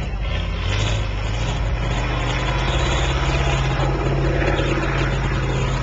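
Off-road truck engine running steadily at low revs, its note firming up about a second in and rising a little in pitch near the end.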